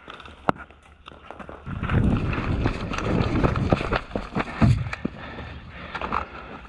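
Running footsteps on sandy ground, loudest from about two seconds in until nearly five seconds in, with a single sharp click about half a second in.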